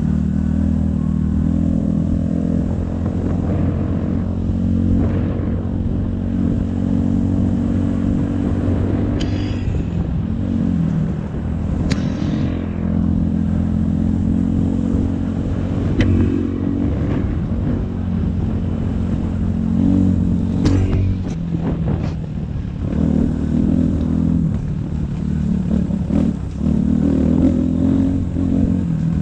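250 dirt bike engine running on and off the throttle, its pitch rising and falling as it rides along a bumpy trail, with a few sharp knocks and clatter from the bike over the ground around the middle.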